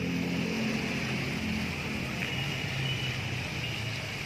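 A motor vehicle's engine running nearby, a low, slightly wavering hum over a steady outdoor hiss.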